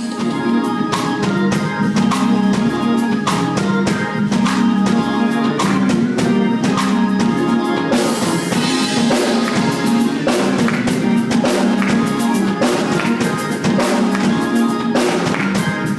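Instrumental intro of a church worship song, played by a band with a drum kit. It starts suddenly and keeps a steady beat throughout.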